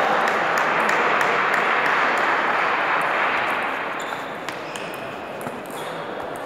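Table tennis ball clicking off bats and table during a rally, the clicks coming thicker after about four seconds. Under them runs a loud, steady hall noise that eases off a little past the middle.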